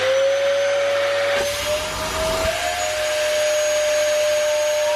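Dyson bagless vacuum cleaner running at full suction, just switched on. Its motor whine rises and settles into a steady pitch with a thin high whistle above it, and a low rumble and brief wobble in pitch come in about a second and a half in.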